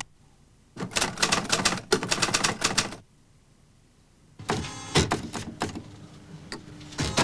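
Manual typewriter typing: a quick run of keystrokes for about two seconds, a pause, then more key strikes from about four and a half seconds in.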